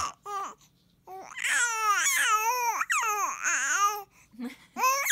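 A three-month-old baby cooing and babbling in high-pitched, sing-song vocal sounds: a short coo at the start, a long run of about three seconds beginning about a second in, and another short coo near the end.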